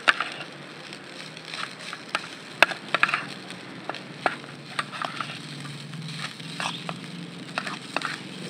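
Metal spoon stirring fried rice in a small metal camping pan, clinking and scraping against the pan's sides in quick, uneven strokes, over a steady low hum.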